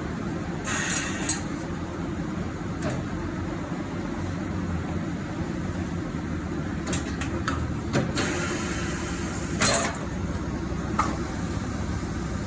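Tyre-change work on a car: scattered metallic knocks and clanks and a couple of short hisses of air over a steady mechanical hum.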